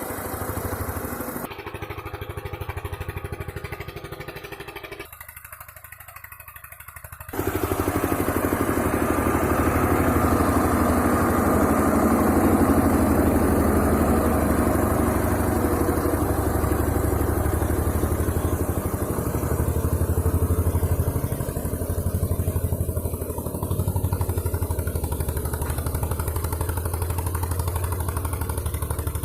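Tractor engine running steadily. The sound jumps abruptly a few times in the first seven seconds, then stays louder and steady.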